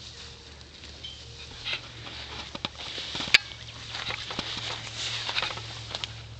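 Horse rolling in tall grass: irregular rustling and crackling of grass under its body, with scattered soft thuds and one sharp click about three seconds in.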